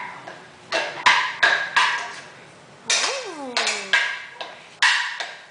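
A wooden spoon banging in a black metal frying pan: about eight uneven clanks, each with a short ring.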